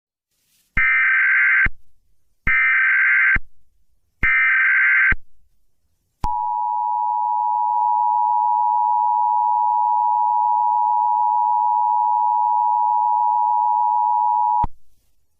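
Emergency Alert System SAME header: three bursts of digital data tones, about a second each with short gaps between them. These are followed by the EAS two-tone attention signal, a steady dual tone held for about eight seconds and then cut off.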